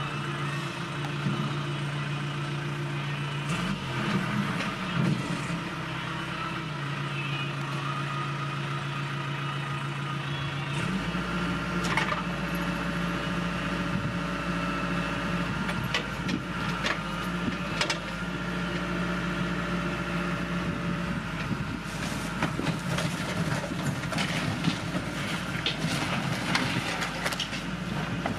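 Case backhoe loader's diesel engine running steadily, its pitch stepping up and down a few times as the hydraulics are worked. From about halfway through come sharp cracks and knocks of shed timbers breaking, growing denser near the end.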